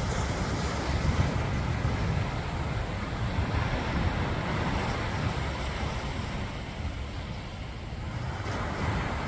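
Ocean surf washing ashore, with wind buffeting the microphone into a heavy, uneven low rumble.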